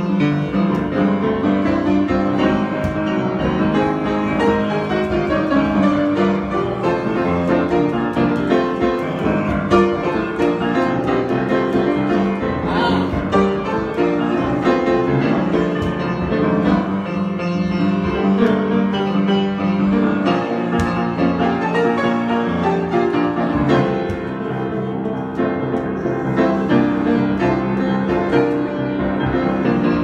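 Grand piano played solo, an unbroken improvised passage with many notes sounding at once.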